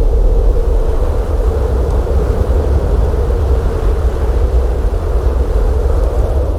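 Blizzard wind blowing hard and steadily: a deep, constant rumble with a hollow howling tone held over it.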